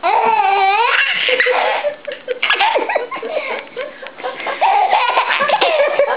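A baby laughing with delight: a long, high laugh in the first two seconds, then shorter giggles.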